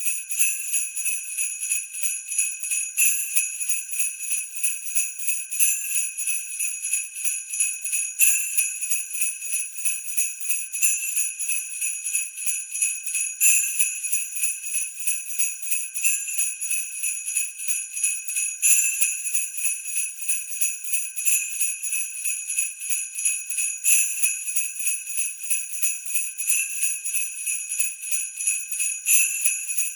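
Sleigh bells shaken in a steady rhythm, a continuous high jingle with a louder accent about every two and a half seconds.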